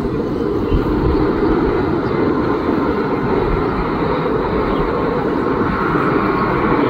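Airbus A319's twin jet engines at takeoff thrust during the takeoff roll and lift-off: a steady deep rumble, with a higher whine building over the last couple of seconds.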